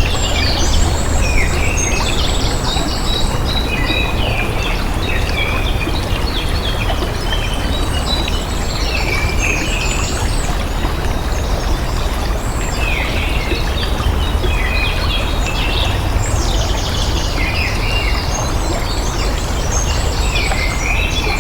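Steady rush of moving water with birds chirping and trilling over it in short clusters, thinner in a couple of spots.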